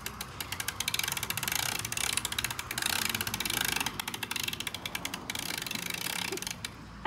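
Socket ratchet clicking in quick runs of pawl clicks with short pauses between strokes as it works on a dirt bike's rear axle nut.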